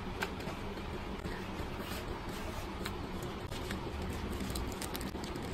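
Cardboard box packaging and a small plastic-wrapped part being handled: a scatter of light clicks and rustles, most of them in the second half, over a steady low background rumble.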